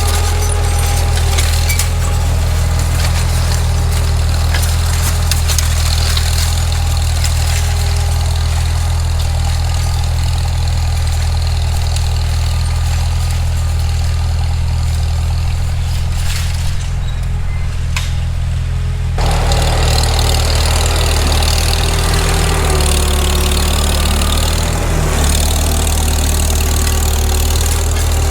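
Farmall Super M tractor's four-cylinder engine running steadily. About nineteen seconds in, the sound gets brighter and a little louder.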